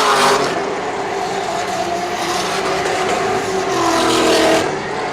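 Drift cars' engines running hard on track, with the noise of tyres sliding across the surface; about four seconds in, an engine note climbs and then drops away sharply.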